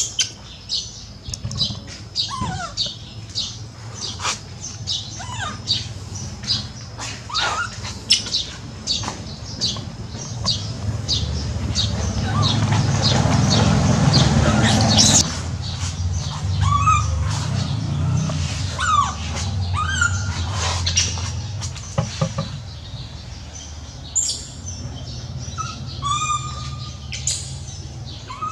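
Short high chirping calls repeating about twice a second, with scattered short squeaky rising calls. Partway through, a motorbike engine runs, building up and then dropping off sharply.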